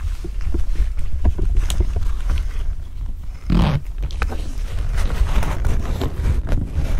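Wind rumbling on the microphone while the fabric window of a pop-up hunting ground blind is handled and unzipped: rustling, scraping and small clicks, with one louder rasp about halfway through.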